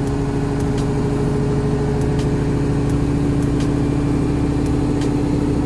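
Diesel engine of a 1998 Tadano Faun ATF 70-4 all-terrain crane running steadily, heard from inside the driver's cab as a steady hum with a few faint ticks.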